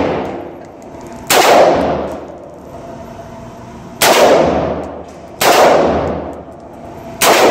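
Four single gunshots, the first about a second in and the last near the end, each followed by a long echo off the walls of an indoor range.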